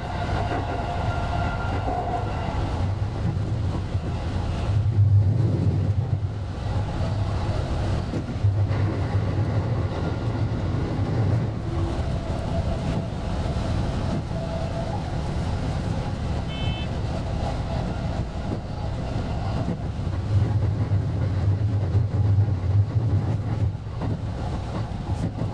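JR West 223 series electric train running, heard from the cab: a steady rumble of wheels on rail, with a low drone that swells and eases several times and a faint whine from the motors now and then.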